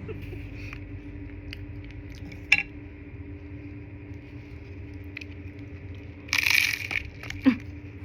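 Close-up eating of a crunchy salad: sharp crisp clicks of chewing, with one loud crunch lasting about half a second, about six and a half seconds in.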